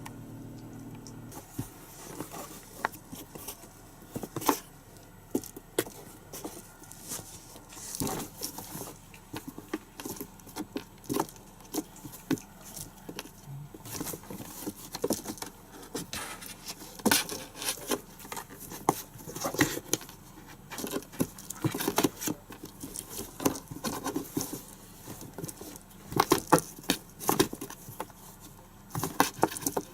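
Kittens at play: irregular light taps, clicks and scrabbling of paws and claws, coming in uneven clusters with short gaps between.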